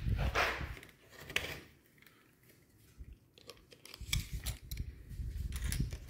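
Quiet handling sounds from a steel tape measure being pulled out and hooked over the edge of a door: a few sharp small clicks, then low knocks in the last two seconds.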